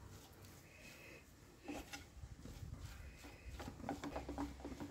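Faint, irregular scraping and tapping of a spatula stirring a thick sausage and mashed-potato mixture in a nonstick frying pan, the strokes starting about a second and a half in.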